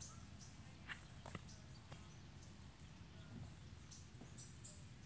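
Near silence: faint outdoor ambience with a low rumble, two light taps about a second in, and a few faint high chirps.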